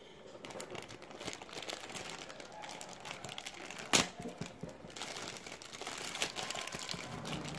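White plastic courier mailer bag being crinkled and pulled open by hand: continuous crackling with a sharp, loud snap about four seconds in.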